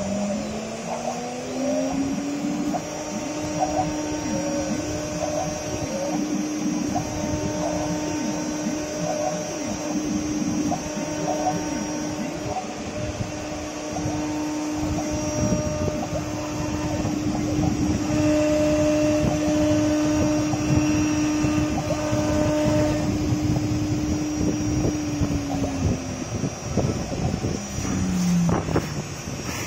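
AKG6012 CNC router spindle whining as it spins up to a steady high pitch, holding that pitch while the bit engraves the board, then winding down near the end. Rough cutting noise and short rising and falling motor chirps from the moving gantry run underneath.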